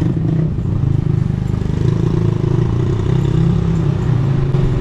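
A steady, loud, low engine-like rumble with a fast flutter, like an engine running at idle.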